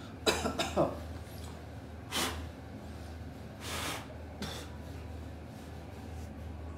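A man's short, sharp puffs of breath, three or four spaced over a few seconds, with a couple of handling knocks near the start and a steady low hum underneath.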